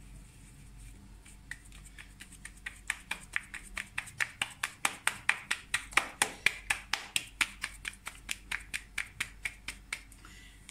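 Floured ball of paratha dough slapped back and forth between the palms to flatten it: a quick, even run of soft slaps, about five a second. It starts faint a second or so in, is loudest around the middle and tails off near the end.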